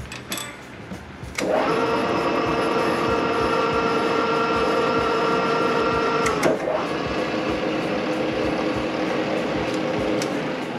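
Vertical milling machine spindle running steadily under power, driving a tap into a ½-inch head stud hole in an engine block. The hum starts suddenly about a second and a half in. About two-thirds of the way through there is a sharp click, after which the machine runs on slightly lower, then winds down near the end.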